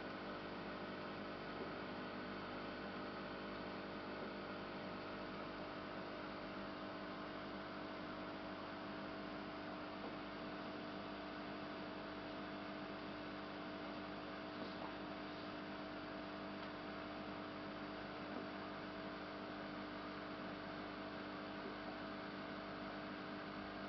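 Steady electrical hum made of several held tones over a faint hiss, with a couple of tiny ticks in the second half.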